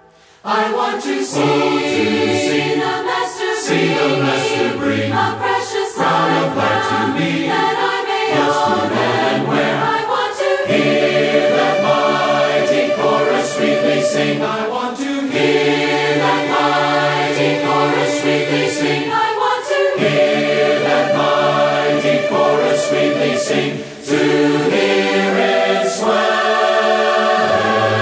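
A choir singing a hymn in harmony, long held chords moving from phrase to phrase with short breaks between them, one near the end.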